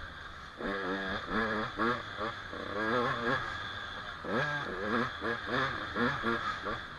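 Small dirt bike engine revving in short bursts, the throttle opened and closed over and over, with the bursts coming quicker, about two a second, in the second half.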